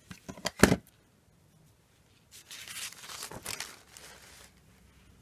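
A few sharp clicks in the first second, then thin tissue paper and copy paper rustling and crinkling for about two seconds as the sheets are moved aside.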